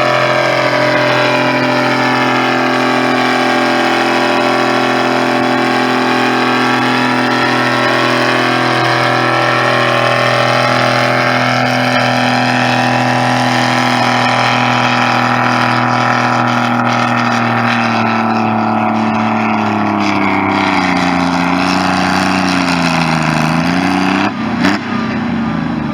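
Tractor engine running hard at a steady speed. Its pitch sags in the last few seconds, then it rises briefly before the sound drops away suddenly.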